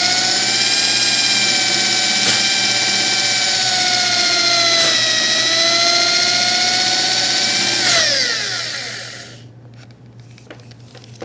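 Handheld electric drill boring a 3/8-inch flat-bottomed hole into a wooden board with a Forstner bit. The motor whines steadily, dips slightly in pitch midway under load, then winds down about eight seconds in, followed by a few light clicks.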